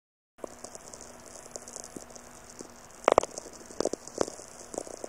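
VLF radio recording: crackling static made of many tiny clicks, with a few louder pops about three and four seconds in, over a faint steady hum. It begins about half a second in.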